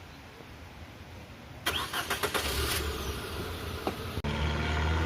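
Clicks and rattling about two seconds in, then an engine running steadily from about four seconds in.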